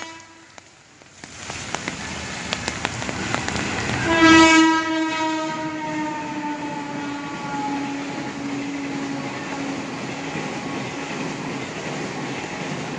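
A long horn blast starting about four seconds in and sliding slowly down in pitch, over a steady rumbling and clattering noise, like a train passing.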